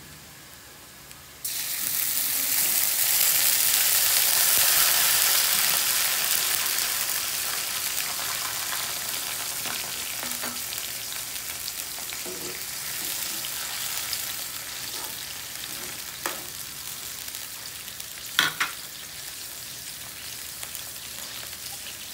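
Sprite added to hot oil, garlic and onions in a wok, which sizzle loudly. The sizzle starts suddenly about a second and a half in, then slowly settles to a steadier, quieter sizzle. A spatula knocks against the wok a few times.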